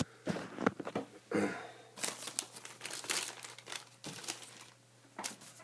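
Trading-card pack wrappers crinkling and tearing as packs of 2014 Panini Prestige Football are ripped open and the cards handled, in a run of irregular sharp crackles.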